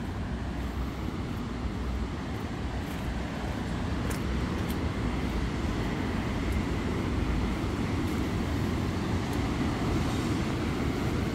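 Steady low rush of wind across the microphone on a rocky seashore, with the wash of surf mixed in.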